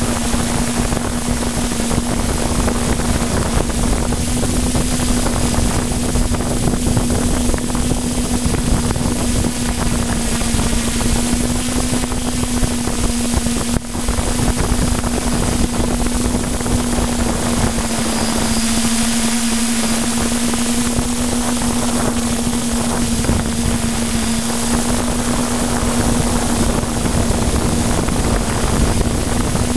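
Camera drone's electric motors and propellers, heard from the aircraft's own onboard camera: a steady hum that wavers slightly in pitch, over a constant rushing noise of airflow. The sound dips briefly about halfway through.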